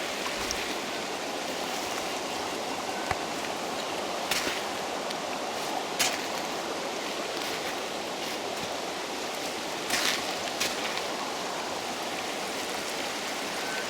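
Flooded river running with a steady rushing sound, with a few short knocks about four, six and ten seconds in.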